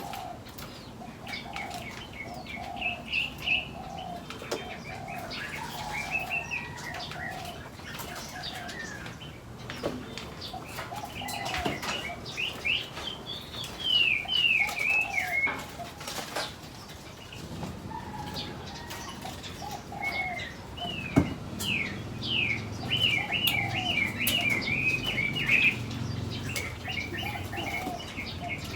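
Mixed aviary birds calling: many quick chirps and whistled notes over a run of repeated lower calls, with wings flapping and fluttering now and then. The calling is busiest in two spells, around the middle and in the last third.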